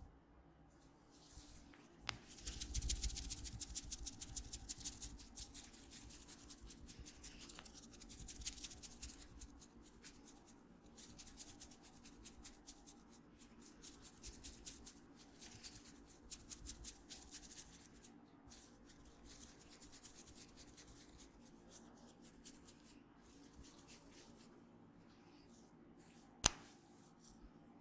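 Hands massaging an oiled head and neck: quick rubbing and tapping strokes on skin and hair in spells of a few seconds, with one sharp click near the end.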